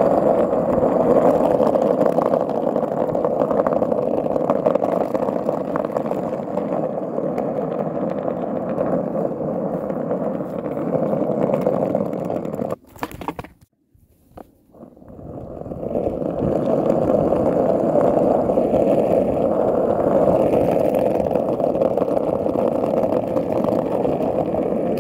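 Skateboard wheels rolling fast on rough asphalt, a loud steady rolling noise. About halfway through it drops almost to silence for a couple of seconds, then builds back up.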